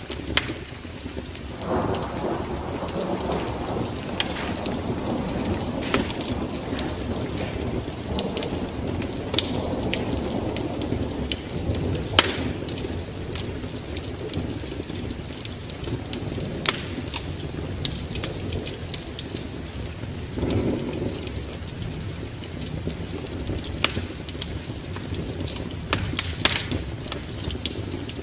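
Wood fire burning in a fireplace: a steady rush of flames with sharp crackles and pops scattered throughout, the flames swelling louder about two seconds in and again about twenty seconds in.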